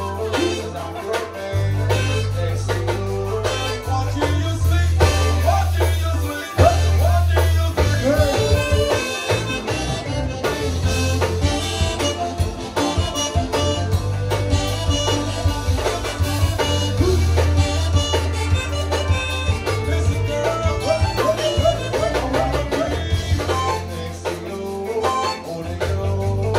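Zydeco band playing live: a reedy accordion lead over a steady bass line and drums.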